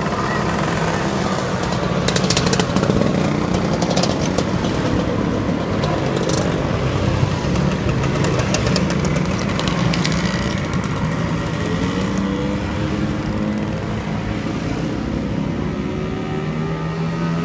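A procession of motor scooters, Vespas and Lambrettas, riding past in a steady stream, their small engines buzzing together with pitches that rise and fall as individual scooters go by. A few brief crackles come around two seconds in.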